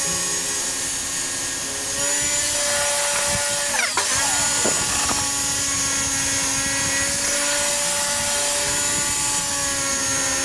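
Table saw running with a steady whine made of several tones. About four seconds in, the pitch sweeps down and then back up.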